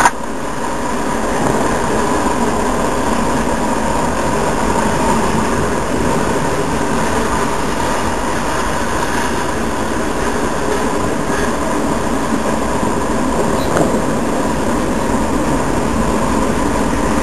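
Freight cars of a passing train rolling by, a steady noise of steel wheels on the rails without a break.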